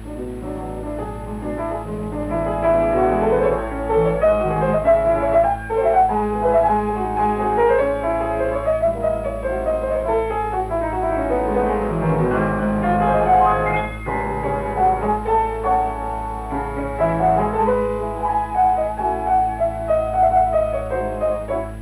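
Film soundtrack music led by piano, with quick runs of notes, over a steady low hum.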